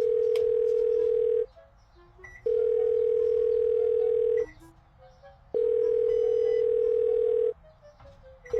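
Telephone ringback tone on an outgoing call waiting to be answered: a steady tone sounding three times for about two seconds each with a one-second gap, and a fourth ring starting at the very end.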